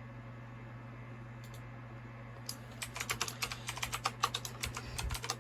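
Typing on a computer keyboard: a quick, irregular run of key clicks starting about halfway through, over a steady low hum.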